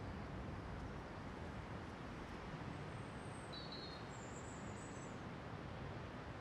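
Faint steady outdoor background noise with a few short, high bird chirps about three to five seconds in. The parked Tesla Model S 85D, an electric car, makes no engine sound at idle.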